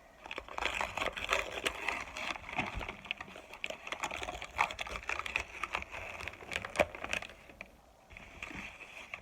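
Dry, crunchy crackling of microwaved cornstarch chunks being broken up, a dense run of small crisp clicks that eases off about seven seconds in.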